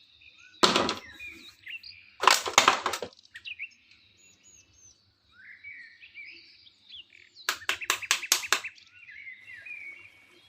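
Small birds chirping in the background, broken by sharp clicks and cracks: one about half a second in, a cluster around two to three seconds in, and a quick run of about eight clicks later on.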